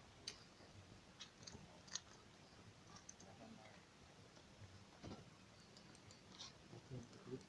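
Near silence with scattered faint clicks and crackles, two of them a little louder, about a quarter-second and two seconds in.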